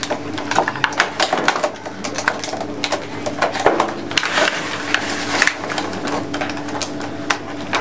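Small glass jars with lids clinking and knocking against each other and the tabletop as they are handled and set into a rack: an irregular run of light clicks and taps over a steady low hum.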